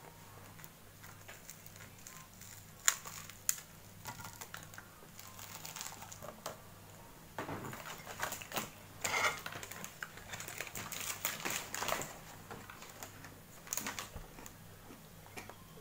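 Crusty bread roll crackling as it is broken apart by hand and eaten, with irregular small clicks and crackles of the crust and chewing, busiest in the middle of the stretch. A faint steady low hum lies underneath.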